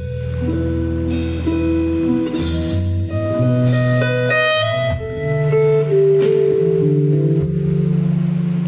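Live instrumental music: an electric guitar plays a melody and chords over sustained electric bass guitar notes, with no drums.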